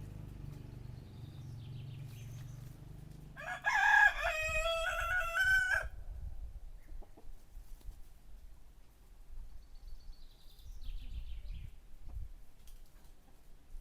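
A rooster crows once, a loud crow of about two seconds starting about three and a half seconds in. Before it a low steady hum runs and stops, and faint chirps of small birds come and go.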